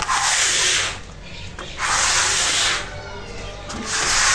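Three swishing strokes of a long-handled floor cleaner across a concrete floor, one about every two seconds.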